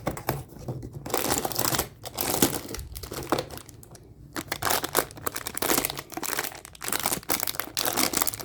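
Packaging being handled and opened: crinkling and tearing in quick irregular crackles, with a short pause a little past the middle, as an advent-calendar compartment is opened and a fortune cookie unwrapped.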